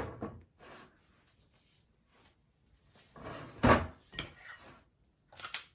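Metal spoon scraping and knocking against a bowl and cupcake tin while thick cupcake batter is spooned out. The sounds come in a cluster about halfway through, with the loudest knock in the middle of it and one more short scrape near the end.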